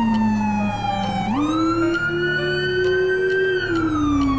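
Police vehicle siren in a slow wail. Its pitch falls slowly, sweeps up quickly about a second and a half in, holds high, and then falls again near the end.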